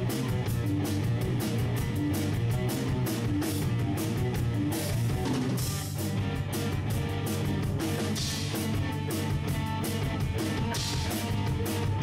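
Instrumental progressive rock: guitar over a drum kit playing a fast, even beat, with a cymbal wash about five seconds in.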